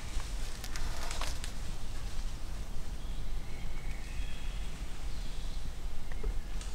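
Quiet woodland ambience with faint bird calls and light rustling in the undergrowth, and a few sharp clicks about a second in.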